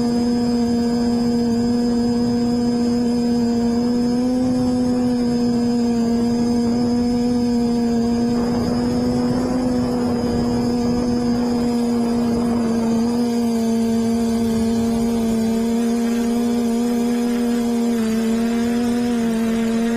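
WiteSpy quadcopter's electric motors and propellers buzzing steadily at one pitch, heard close up through the camera on board, with slight wavers in pitch in the second half as it flies.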